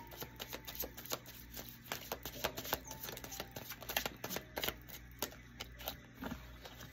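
Oracle cards being shuffled and handled: a run of irregular light flicks and taps, several a second.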